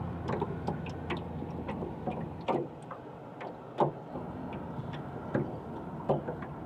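Irregular light clicks and knocks of fishing tackle being handled in a boat, a few sharper knocks among them, over a low hum that drops away about two and a half seconds in.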